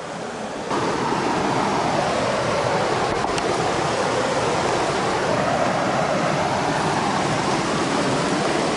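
Shallow rocky stream rushing and splashing over stones in a riffle, a steady even rush that gets louder less than a second in.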